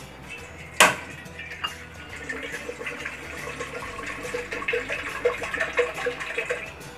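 A single sharp clank about a second in, then a glass of water poured into a large cooking pot, splashing for about four seconds.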